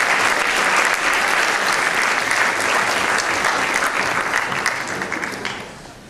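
Large audience applauding in an auditorium, many hands clapping steadily, then dying away about five and a half seconds in.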